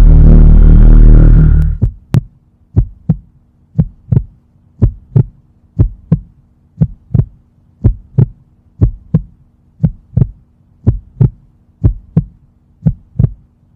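A loud intro music hit with a deep boom cuts off about two seconds in. A heartbeat sound effect follows: double thumps repeating about every two-thirds of a second over a faint steady hum.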